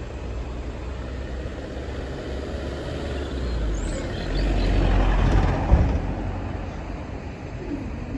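Low rumble of road vehicle engines at a level crossing, swelling midway through, with one sharp knock at its loudest.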